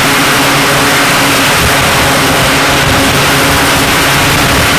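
Loud, steady noise of aircraft engines running on an aircraft carrier's flight deck, with a faint low hum of steady tones underneath.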